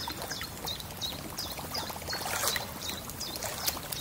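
Water lapping and trickling around an inflatable kayak, with a bird repeating a short high chirp two or three times a second.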